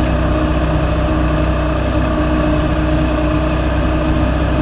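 Outboard motor on a small aluminum fishing boat running steadily under way at a constant pitch, sounding smooth.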